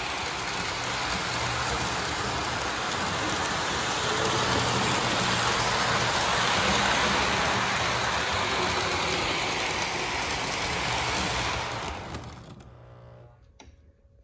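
Lionel O-gauge toy train set running on FasTrack: a steady rushing rattle of wheels on the track with a low motor hum under it, which dies away over the last two seconds.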